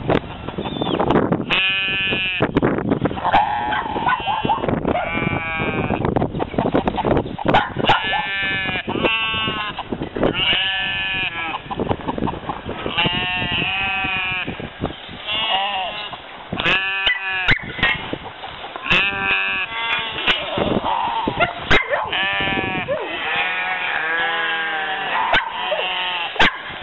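Sheep or goats bleating over and over, a drawn-out call every second or two, some calls overlapping.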